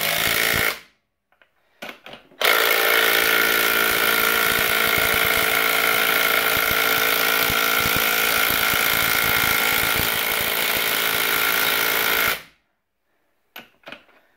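Earthquake 20V cordless impact wrench hammering as it runs the top lock nut down the threaded shaft of a new front strut held in spring compressors. A short burst and a brief blip come first, then a long steady run of about ten seconds that stops abruptly.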